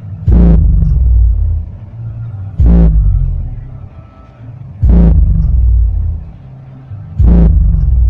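Pioneer 8-inch powered subwoofer playing a bass test track: about four heavy bass hits, each a sharp attack followed by a deep bass note that fades over about two seconds.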